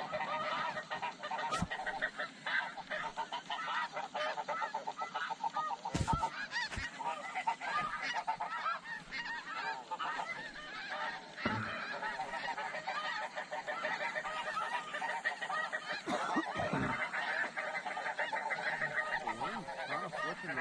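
A large flock of snow geese calling, dense overlapping short calls without a break.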